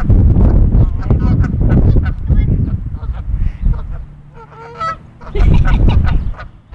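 Canada geese honking repeatedly in short, loud calls, over a low rumble.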